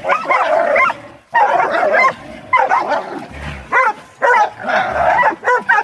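Hog-hunting dogs barking over and over in short loud bursts at a caught boar hog.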